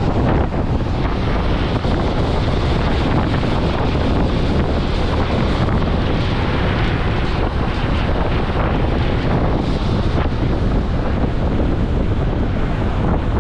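Steady, loud wind buffeting the microphone aboard a moving ferry, with the rush of the boat on the water underneath.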